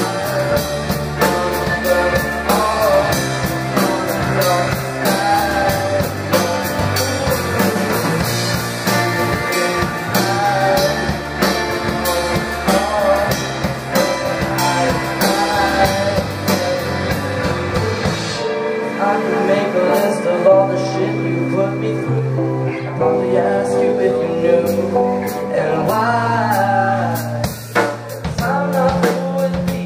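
Live alternative rock band playing: guitars, bass and a drum kit with steady cymbal and drum hits. About eighteen seconds in the drums drop back and the arrangement thins out, with a brief dip in loudness near the end.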